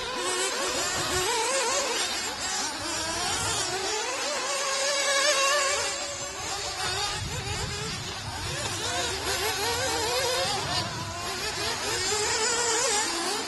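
Small high-revving nitro engines of 1/8-scale off-road buggies, several at once, buzzing and rising and falling in pitch as they accelerate and lift off around the track.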